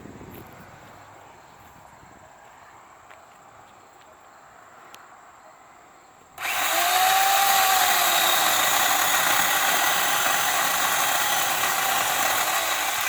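Worx corded electric chainsaw switched on about six seconds in: the motor and chain start all at once and run at speed with a whine that rises and falls slightly, cutting into a tree trunk.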